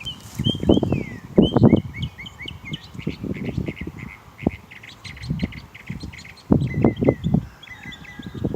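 A mockingbird singing a fast run of short chirps and whistled, sliding phrases that keep changing from one call type to the next, the mimicry of many bird calls. Irregular loud low rumbling bursts come through under the song, the loudest about a second in and again around seven seconds.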